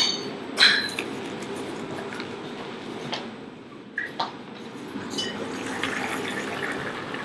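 Kitchenware noises over a steady low hum: a few sharp metal clinks and knocks, the first two ringing briefly, with the heavy lid of an enamelled cast-iron pot being lifted near the end.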